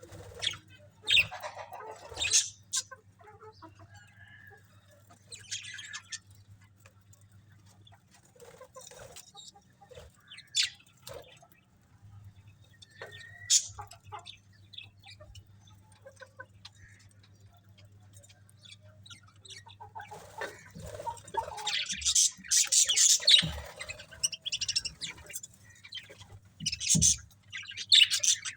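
Budgerigars chirping in short, scattered bursts, livelier for a few seconds about two-thirds of the way in. A faint steady low hum runs underneath.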